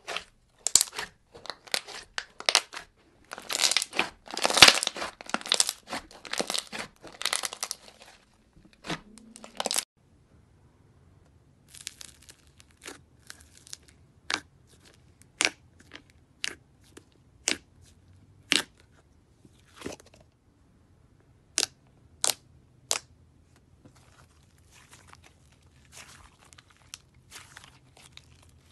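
Slime being squeezed and poked by hand, crackling and popping. A dense run of crackles and pops fills the first ten seconds or so, then single sharp pops come about once a second as a thumb presses into slime in a tub, and softer crackling follows near the end as slime is stretched.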